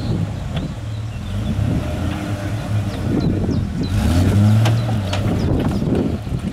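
Jeep Wrangler's engine pulling under load as it crawls over a steep, rutted dirt and rock mound. It revs up and gets louder about four seconds in. Scattered sharp clicks sound over the engine.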